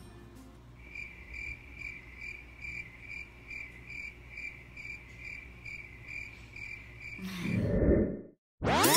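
Cricket-chirp sound effect, an even high chirp repeating about two and a half times a second, laid over a sleepy pause. Near the end a loud rising swoosh cuts to a moment of silence, then music with sweeping rising and falling tones starts.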